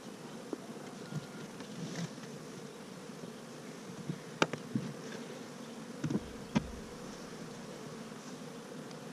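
Honey bees buzzing steadily in a dense cloud around an open hive. A few sharp knocks about four to seven seconds in, the loudest first, as the hive's metal-topped outer cover is pried up and lifted off.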